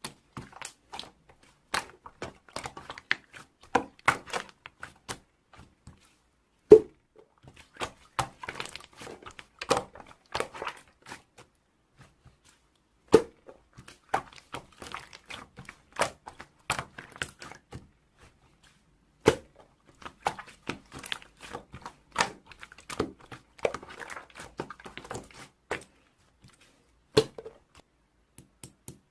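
Slime being played with by hand: a dense run of small sticky clicks and pops as it is squeezed and stretched, with a louder slap about every six seconds.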